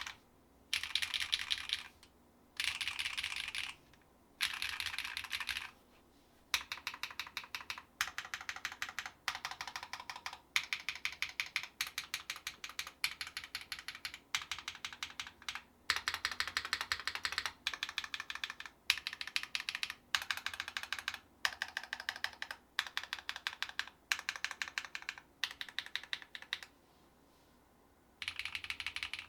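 Typing on a Mekanisk Fjell mechanical keyboard with a brass plate, lubed Drop Holy Panda tactile switches and GMK keycaps. It starts with a few short bursts of rapid keystrokes, then goes on as fast, steady typing in runs of a second or two with brief pauses, and stops for a moment near the end.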